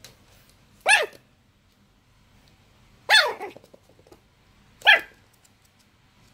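A dog giving three short, high play barks a second or two apart, each one falling in pitch.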